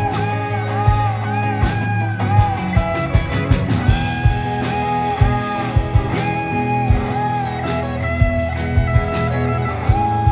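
Live blues-rock band: an electric guitar solo of long sustained notes bent up and back down, over a steady bass line and drum hits.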